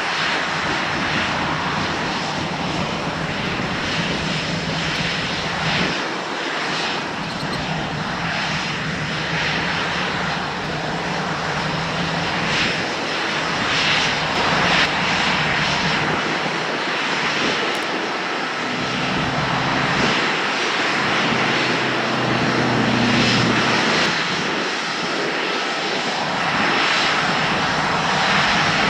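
Airliner jet engines running, a loud, steady rush of noise with a low hum that shifts in pitch around the middle.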